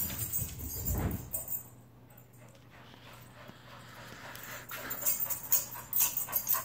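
A dog's feet on a carpeted floor: heavy thumps in the first second or so as it runs off, then quiet, then a quick run of light footfalls and clicks as it comes back.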